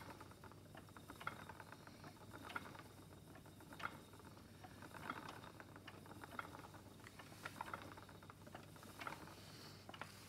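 Faint soft clicks from a treadled wooden spinning wheel, coming about every second and a quarter as the wheel turns, with lighter scattered ticks between them.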